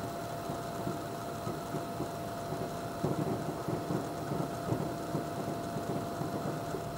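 Distant fireworks rumbling faintly over a steady background hiss, growing a little stronger from about three seconds in, with no sharp individual bangs.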